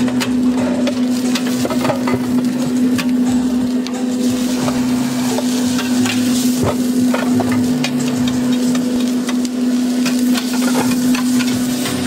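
Metal spatulas scraping and clacking on a hot steel flat-top griddle as egg and sliced vegetables are stir-fried, with frying sizzle and a steady low hum underneath.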